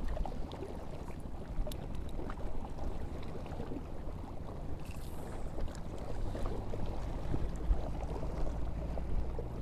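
Wind rumbling on the microphone by open water, with small scattered clicks and a brief higher hiss about five seconds in as a spinning rod is cast out.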